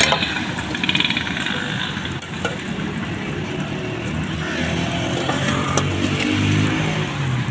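Road traffic: motor vehicle and motorcycle engines running and passing, one coming through more strongly near the end, with a few sharp clicks over it.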